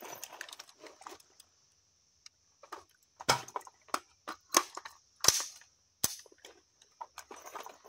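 Dry-fire reload and transition drill with an unloaded AR-15 and pistol: a quick run of sharp metallic clicks and clacks as the trigger snaps, the magazine is swapped and the pistol is drawn and dry-fired. The loudest clacks come in the middle, none of them shots.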